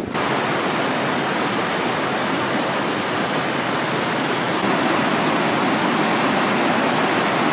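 The swollen Elbe (Labe) river in flood, its fast muddy water rushing by in a steady, even noise.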